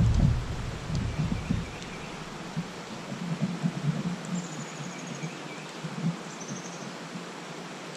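Open-air river ambience: a low rumble fades out over the first second or two, leaving a faint steady rustle. Two short high trills come near the middle, one about four seconds in and one about six seconds in.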